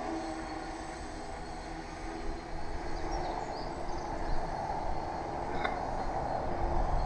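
Tarot FY-680 hexacopter's motors and propellers whirring in flight: a stack of steady tones that shift in pitch as the throttle changes, over a low rumble.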